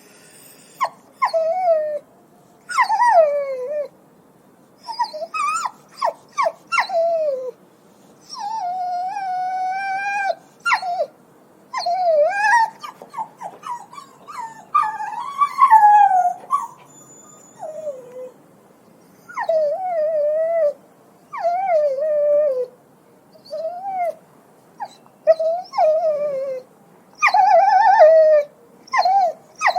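A dog yelping and whimpering: a series of high-pitched yelps that fall in pitch, some short and sharp, a few drawn out into longer whines of a second or more, with short pauses between.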